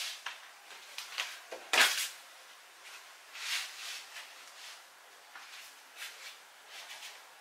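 Scattered rustling and brushing of clothing and body movement as a person shifts and adjusts what she is wearing, with one louder rustle about two seconds in.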